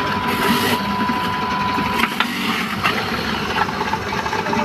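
Commercial juicer machine running steadily while carrots are pushed down its feed chute and ground to juice. A thin steady tone over the running noise cuts off about two seconds in.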